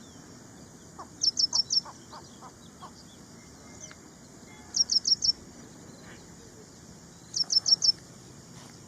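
Ashy prinia singing: three short phrases of four quick, high-pitched notes each, a few seconds apart.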